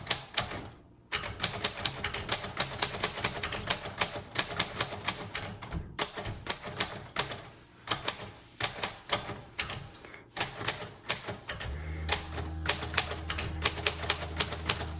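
A 1938 Royal Model O manual typewriter being typed on at a steady pace, a run of sharp key strikes several per second, with short pauses about a second in and about six seconds in. A low steady hum comes in near the end.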